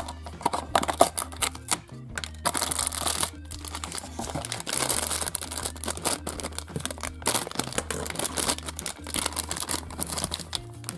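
Toy packaging being torn open and crinkled by hand, irregular rustling and clicks, over steady background music.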